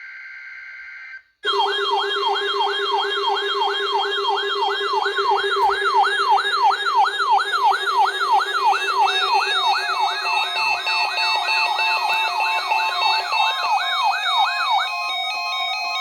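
Emergency Alert System test tones. The last burst of a SAME digital header, a short steady electronic screech, gives way after about a second and a half to a loud electronic siren tone. The siren sweeps up and down a little over twice a second over a steady low tone. Near the end the sweeping stops and changes to stepped beeping tones.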